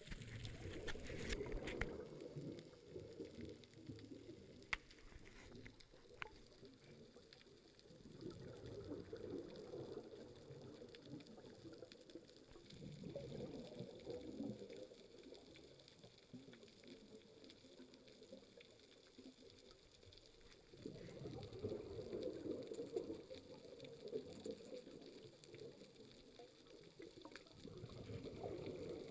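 Underwater, a scuba diver's exhaled breath bubbling out of the regulator: a muffled bubbling rush that swells and fades every several seconds. There are a few faint clicks.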